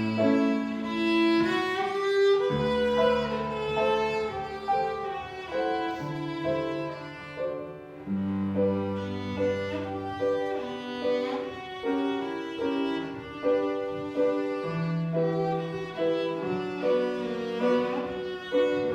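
A cello plays a slow, singing melody of long held notes over piano accompaniment.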